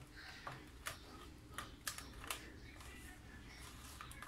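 Faint, irregular clicks and soft taps as a hand presses blended tomato pulp through a plastic colander resting on a glass bowl.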